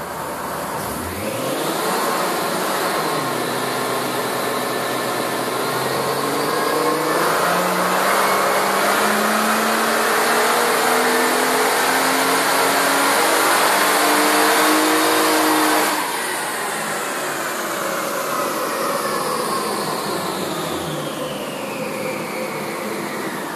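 Mitsubishi Magna VRX Ralliart V6 at full throttle on a chassis dyno with a 100 hp nitrous oxide shot, revs climbing steadily for about fifteen seconds. The engine then drops suddenly off throttle and winds down as the rollers slow.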